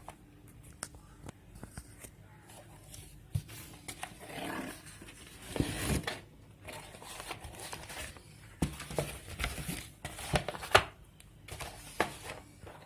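A courier package being opened by hand: rustling and tearing of the packaging, with scattered sharp clicks and taps and a couple of longer ripping sounds a little before halfway.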